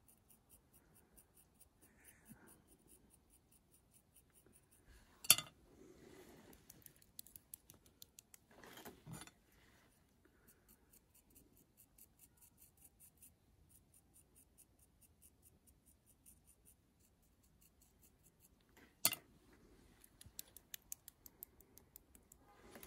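Faint scratching of a pointed modelling tool scoring soft clay by hand, in short repeated strokes, with two sharp clicks about five seconds in and near the end.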